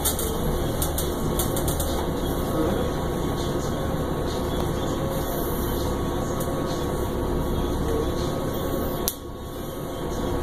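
Cabin noise of a 2009 Orion VII transit bus under way: a steady engine and road drone with scattered clicks and rattles. About nine seconds in, a sharp click is followed by a sudden drop in the noise, which then slowly builds back up.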